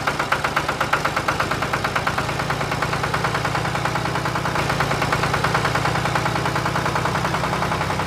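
Engine idling with a fast, even chug over a steady low hum, the pulses quickening a little about halfway through: the running sound of the model tractor.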